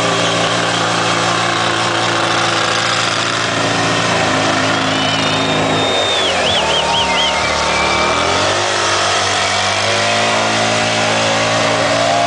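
Motorcycle burnout: the engine is held at high, steady revs while the rear tyre spins against the pavement with a constant hissing scrub. The revs dip about six seconds in and climb back up near ten seconds.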